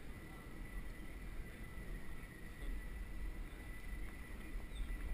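Low rumbling wind noise on a head-mounted camera's microphone while cycling along a cobbled street, with a faint steady high tone over it.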